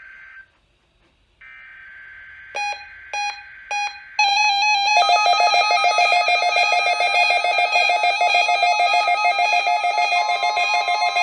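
Several NOAA weather radios receiving the weekly test. Three short bursts of the SAME data header come first, about half a second apart. About four seconds in, the receivers start sounding their alerts together in a loud, rapidly pulsing mix of beeps and tones, and a steady warning tone joins near the end.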